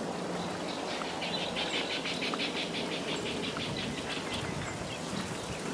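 A rapid high-pitched trill of about nine pulses a second, lasting about two seconds, from a calling bird or insect, over steady outdoor background noise.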